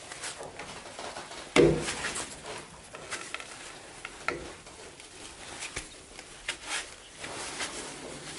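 Gloved hands working a rubber V-belt onto a metal multi-groove lathe pulley, turning the pulley by hand: a sharp knock about one and a half seconds in, then scattered clicks and rubbing as the belt is worked into the groove.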